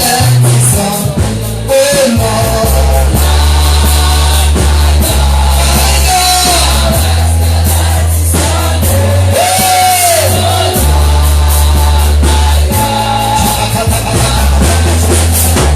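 Loud live gospel praise music: a drum kit and a heavy bass line with voices singing.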